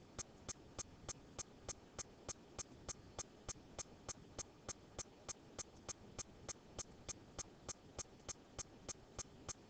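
Faint, evenly spaced clicks, about three a second, like a steady ticking.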